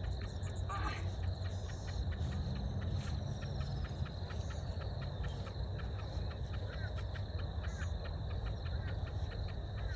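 Insects chirping at dusk in a steady rhythm of short pulses, several a second, over a constant high hum and a low rumble.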